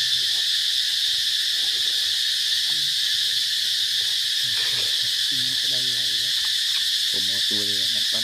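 A steady, high-pitched chorus of insects droning without a break. Faint voices talk in the second half.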